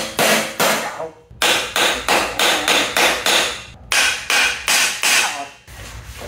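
A hammer striking the steel shipping frame of a crated riding mower, knocking the frame apart. It comes as quick, even blows, about three a second, in three runs with short pauses between, and stops a little before the end.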